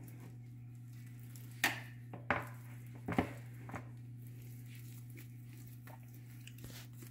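A few light clicks and knocks of a spatula against a plastic mixing bowl as soft dough is pulled out and handled, over a steady low hum.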